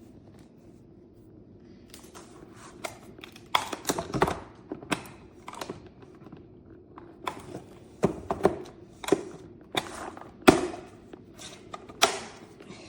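Irregular plastic knocks and clunks as the emptied dirty-water tank of a Dreame H12 Pro wet-dry vacuum is pushed and worked back into its seat, a hard fit, with a sharper click near the end as it goes into place.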